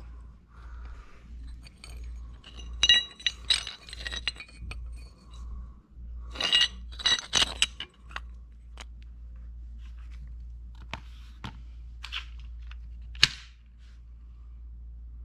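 Thin aluminium checker-plate light cover clinking and ringing as it is handled, in two clusters of sharp metallic clinks, then a few lighter clicks and one sharp click near the end.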